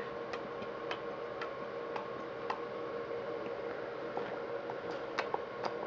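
A baby smacking his lips while eating cereal: a string of short, sharp clicks, irregular, about one or two a second.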